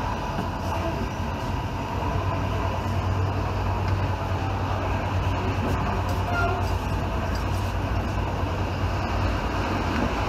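Steady running noise of a 1980s passenger train heard from inside the carriage, with a constant low hum beneath it.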